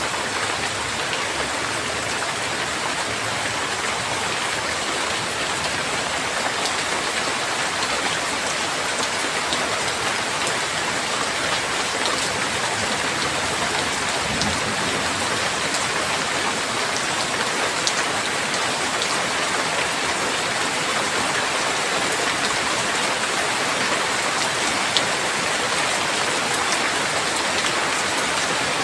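Steady rain falling, an even hiss dotted with scattered sharp drop hits.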